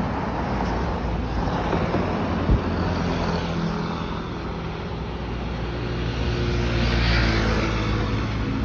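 Road traffic passing close by: vehicle engines running and tyres on the road, with one vehicle going past louder a little before the end. A single sharp knock about two and a half seconds in.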